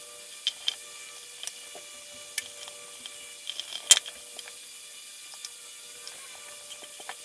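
Small clicks and taps of a screwdriver and phone parts being handled during a smartphone repair, with one sharper, louder click about four seconds in. A faint steady hum runs underneath.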